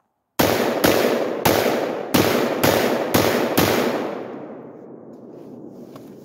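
Seven quick shots from a 10.5-inch-barrel AR pistol firing Tula .223 ammunition, starting about half a second in and spaced roughly half a second apart. The echo trails off for a couple of seconds after the last shot.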